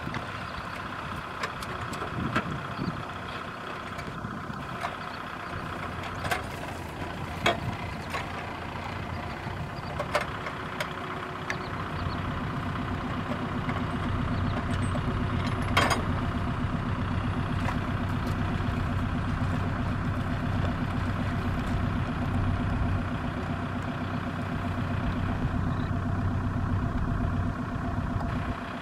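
Tractor diesel engine idling steadily, with a few sharp knocks over it. About twelve seconds in the engine sound grows louder and deeper.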